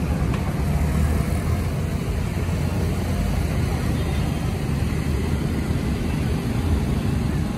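City street traffic of motorbikes and cars, a steady rumble with no single vehicle standing out.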